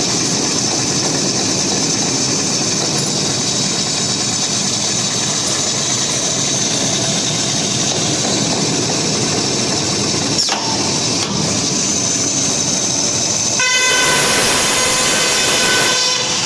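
Tube roll forming line running with a steady mechanical din. About three-quarters of the way through, a louder, hissing sound with a steady held tone comes in for two or three seconds, then stops.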